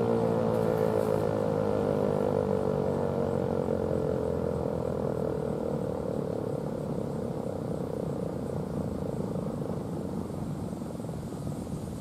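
ASC T-128 electromechanical outdoor warning siren winding down after its alert-tone test. The pitch slides slowly downward and the sound fades, turning rougher and more rumbling as the rotor slows.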